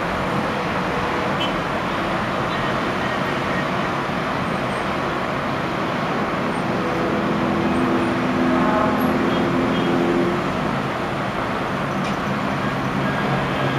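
Steady road traffic noise from cars driving over a bridge. For a few seconds midway a pitched engine drone stands out above the traffic.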